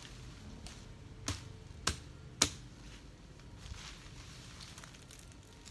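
Three sharp woody cracks as branches are cut back by hand, about half a second apart, the third the loudest, with faint rustling of leaves afterwards.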